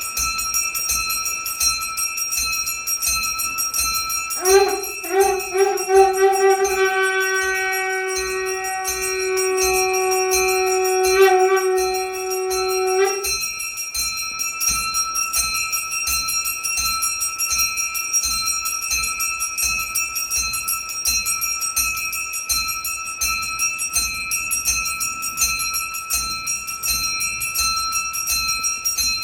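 A hand bell rung rapidly and continuously for puja worship. From about four seconds in, a conch shell is blown: a few short starts, then one long held note that cuts off sharply about eight seconds later.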